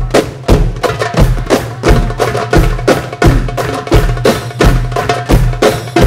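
Darbuka (Egyptian goblet drum) played in a quick rhythm: deep bass doum strokes fall about every 0.7 seconds, with fast sharp tek strokes between them.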